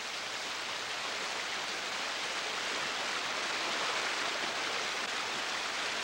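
Shallow creek water running over stones: a steady, even rush of water.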